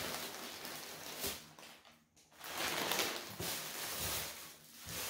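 Plastic packaging rustling and crinkling as it is handled, in two spells with a short pause about two seconds in.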